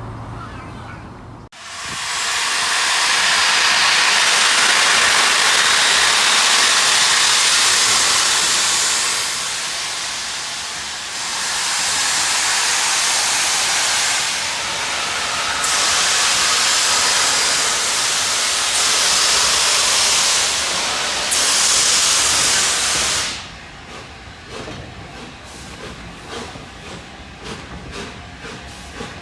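Steam locomotive Union of South Africa, an LNER A4 Pacific, venting steam in a loud, steady hiss that swells and eases in steps for over twenty seconds. The hiss cuts off suddenly, leaving a quieter sound with fast, regular clicking.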